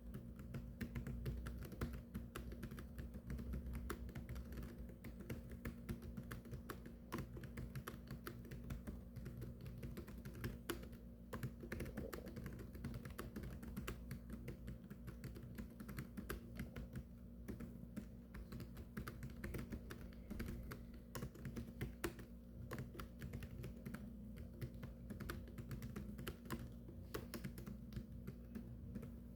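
Continuous fast typing on a computer keyboard: a dense, unbroken stream of key clicks, over a low steady hum.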